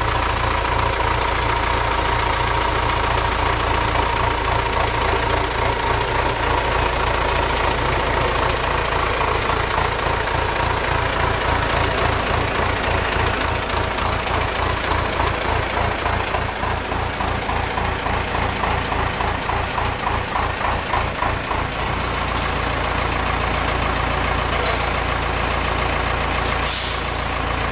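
Tractor diesel engine running steadily, its low beat more pronounced for several seconds in the middle before it settles again. A short hiss comes near the end.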